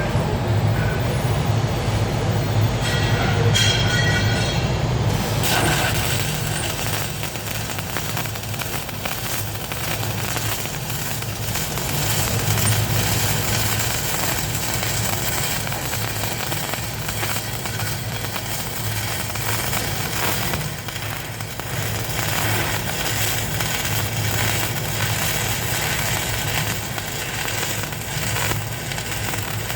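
Electric arc welding crackling and hissing from about five seconds in, over a steady low machine hum.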